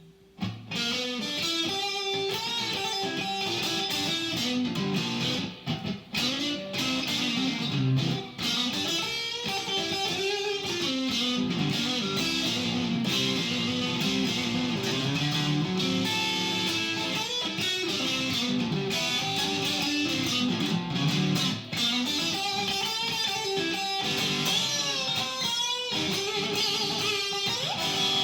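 Solo blues guitar improvisation with no band, single notes and chords changing continuously, starting about half a second in.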